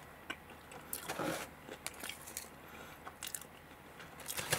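Faint close-up eating and handling sounds: scattered small clicks and short crackles, with a rustle of the greaseproof paper liner near the end as a plastic sauce cup is set back down into the cardboard box.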